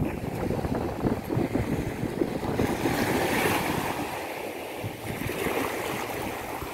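Sea waves on a beach: a hiss of breaking surf swells about three seconds in and again, weaker, near the end, over a low rumble of wind buffeting the microphone.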